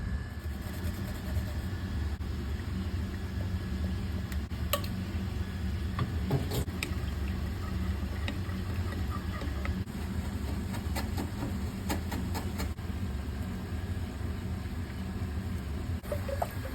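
Steady low hum with scattered light clicks and clatters: a few around five to seven seconds in and a cluster around eleven to twelve seconds in.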